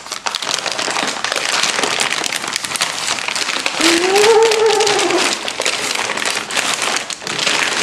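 Stiff brown paper wrapping crinkling and rustling as it is pulled open. About four seconds in, a short hummed tone rises and then falls.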